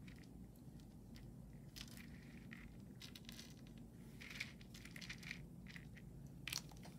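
Faint light clicks and rustles of a metal chain necklace being handled and laid out to be measured.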